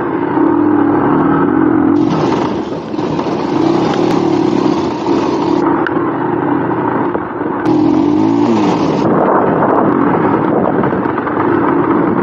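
Motorcycle engine running steadily, its revs shifting up and down around the eight-second mark. Two stretches of hiss lie over it, the first lasting a few seconds from about two seconds in, the second shorter, starting just under eight seconds in.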